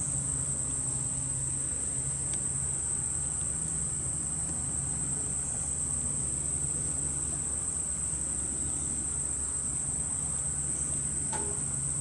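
Steady high-pitched insect chorus from the surrounding grass and trees, with a low steady hum beneath it and a faint tick or two of handling.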